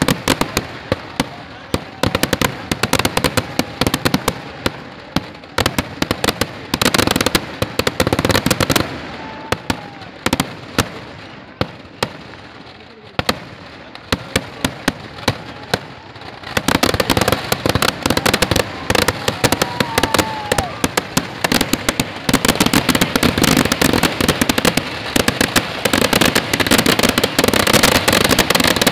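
Eedu vedi fireworks: a rapid, dense barrage of firecracker bangs. The bangs thin out to scattered reports in the middle, then return about sixteen seconds in as an unbroken crackle.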